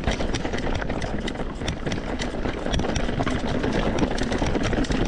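A mountain bike rolling fast over a rough trail: a steady rumble of tyres and wind with a dense run of small rattling clicks.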